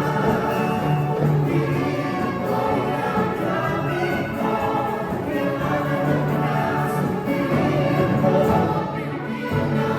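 Live ensemble of orchestra and choir performing, with voices singing over sustained instrumental chords; the music holds steady and eases slightly near the end.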